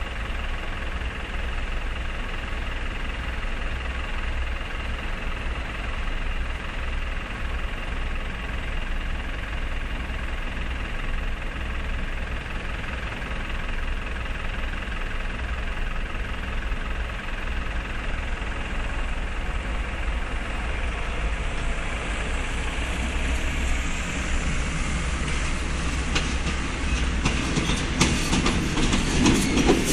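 A steady low mechanical hum, then an approaching electric-hauled passenger train: a rumble builds over the last several seconds, and wheels start clicking over rail joints near the end.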